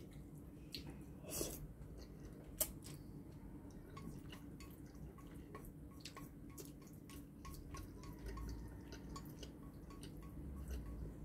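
Quiet eating: spaghetti being chewed, with scattered small wet clicks and taps from the mouth and from wooden chopsticks in a ceramic bowl, two slightly louder in the first few seconds.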